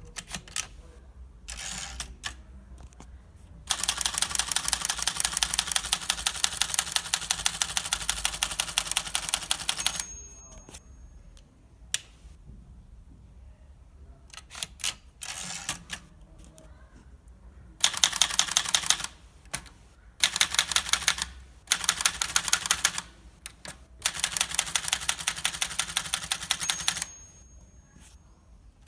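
Olivetti Lettera 32 portable manual typewriter being typed on: rapid runs of key strikes, one long stretch followed by a pause with a few single clacks, then several shorter bursts of typing. A brief high ring sounds as a run stops.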